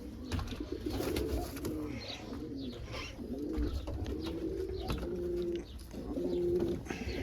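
Domestic pigeons cooing in a loft, several low coos overlapping continuously, with short high chirps and light clicks over them.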